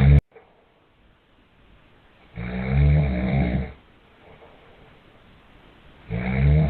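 A man snoring loudly in his sleep: two long snores, one about two and a half seconds in and another starting near the end. The tail of an earlier snore cuts off abruptly just after the start.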